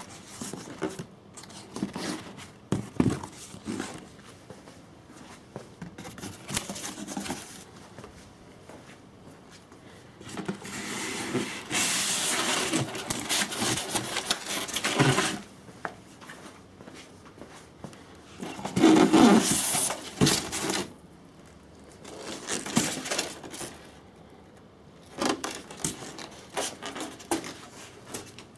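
Irregular handling noises, scrapes and knocks coming and going, with a longer stretch of scraping rustle in the middle and a louder clatter about two-thirds of the way in.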